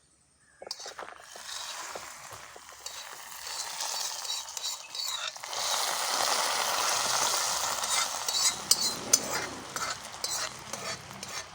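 Hot coconut-oil tempering of mustard seeds, shallots, dried red chillies and curry leaves poured into a pot of rasam, sizzling hard as it hits the liquid. The sizzle starts about a second in, is loudest in the middle, and is joined by metal clinks and scrapes of stirring near the end.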